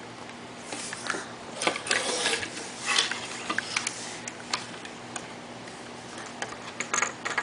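Hard plastic Lego pieces clicking and rattling as they are handled, with a few brief scraping rustles in the first three seconds.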